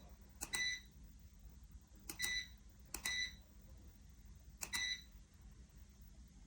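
Four short electronic beeps at uneven intervals, each starting with a click, over a faint low hum.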